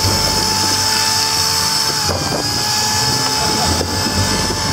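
Corded electric drill with a paddle mixer running steadily in a bucket, mixing pancake batter, with a steady whine that dips briefly about two seconds in.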